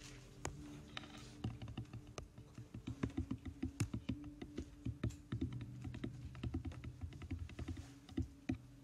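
Typing on a computer keyboard: a run of quick, irregular key clicks, thickest through the middle, likely someone looking up a Bible verse.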